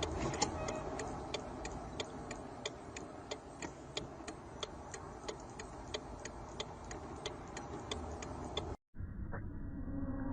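Steady, evenly spaced mechanical ticking, about two ticks a second, over a low background hum; it cuts off abruptly near the end.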